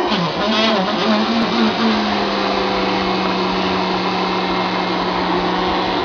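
Vacuum cleaner running with a toy's string sucked into the hose nozzle, the string vibrating to make a low buzzing tone. The buzz wavers and breaks in pitch for about the first two seconds, then holds steady.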